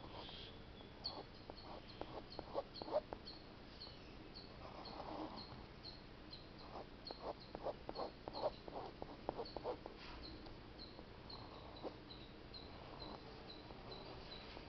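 Ballpoint pen scratching on paper in two spells of quick strokes, about two seconds in and again about seven seconds in, over a steady series of short high chirps repeating about three times a second.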